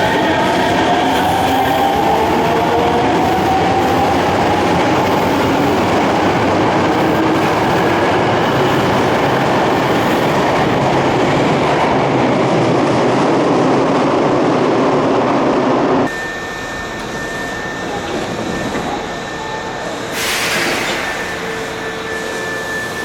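Subway train running along the platform, loud and noisy, with a whine rising in pitch in the first few seconds. About two-thirds of the way in the sound cuts abruptly to a quieter platform with a steady high tone and a short hiss.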